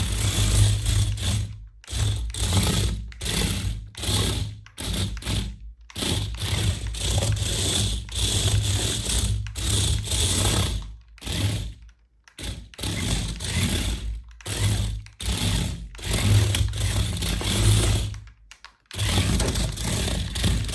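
Toy RC car's small electric motor and plastic gearbox whirring, in runs of a few seconds that stop and start abruptly several times, as the throttle is pressed and let go.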